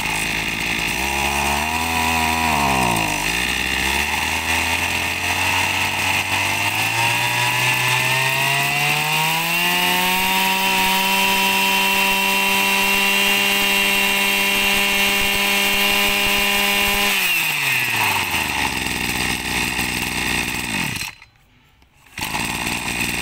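Kubota 26cc two-stroke brush cutter engine running. It idles unevenly with a dip about three seconds in, then revs smoothly up to a steady high speed and holds it for several seconds. It then drops back to idle and cuts off suddenly a little over twenty seconds in.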